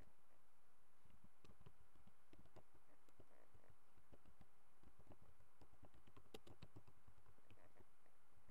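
Faint typing on a computer keyboard: soft, irregular key clicks.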